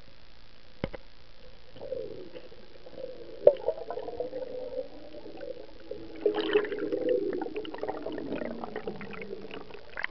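Muffled underwater sound picked up inside a waterproof camera's case at about five metres down. A faint hiss and a single click, then from about two seconds in a wavering low hum with scattered clicks, busiest and loudest around six to seven seconds in.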